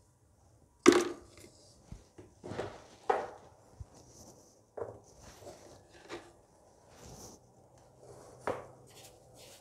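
A string of sharp kitchen knocks and clatters, about six, from utensils and containers being handled beside the stove; the first, about a second in, is the loudest.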